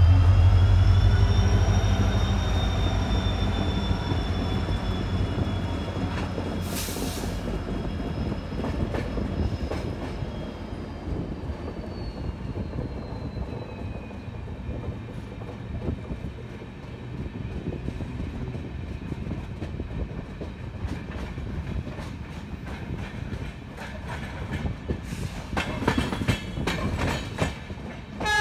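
Passenger train rolling through a curve: a diesel locomotive's low engine rumble alongside at first, then high wheel squeal from the curve whose tones slowly fall and fade. Throughout there is the rumble and clatter of wheels on rail joints, with a quick run of clicks near the end.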